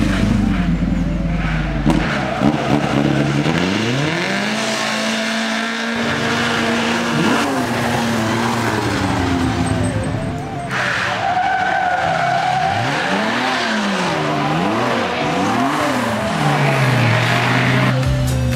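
Rally car engines running hard through a bend, the engine note rising and falling over and over as the throttle is worked and gears change.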